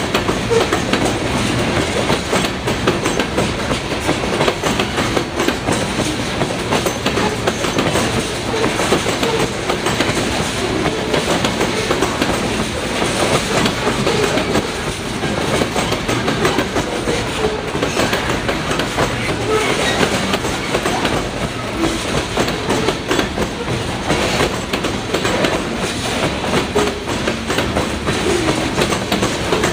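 Freight train of covered hopper cars rolling past at steady speed, its steel wheels clicking and clattering over the rail joints over a continuous rumble.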